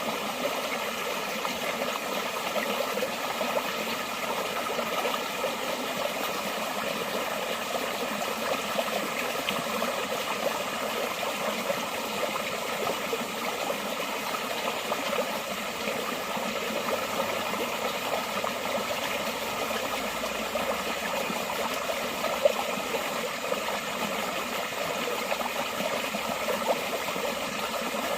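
Forest stream water flowing steadily, a continuous trickling rush. A single brief sharp click stands out about twenty-two seconds in.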